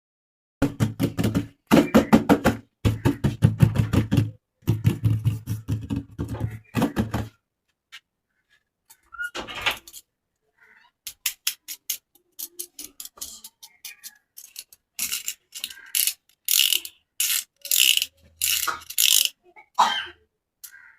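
Plastic toy and packaging being handled: four loud bursts of rapid rattling clicks with a low buzz in the first seven seconds, then scattered clicks, taps and crinkling rustles that grow louder later on.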